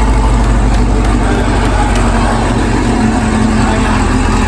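Chevrolet Camaro 2SS V8 engine running steadily at an even speed, with no revving.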